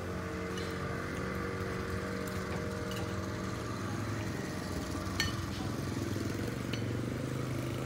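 A small engine running steadily, its pitch stepping up and down a few times, with a few faint light clicks over it.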